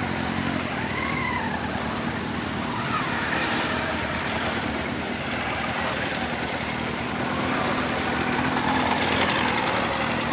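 Motorcycle engines idling and running at low speed, a steady engine hum. Near the end one motorcycle rolls close past and gets louder.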